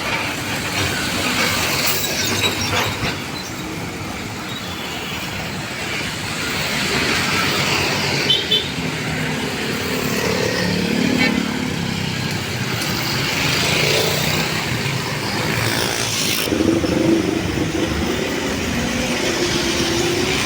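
City road traffic: cars and other motor vehicles passing on a busy boulevard, a steady wash of engine and tyre noise that swells as vehicles go by.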